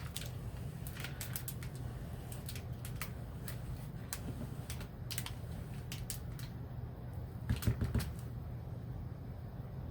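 Spatula clicking and tapping against the mold while spreading a layer of soap batter: irregular light clicks, with a short cluster of louder knocks about seven and a half seconds in.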